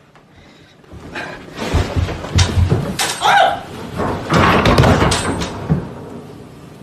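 A person bundled in a puffy comforter thumps and bumps down a staircase: a fast run of knocks and thuds lasting about five seconds, with a short yelp about three seconds in.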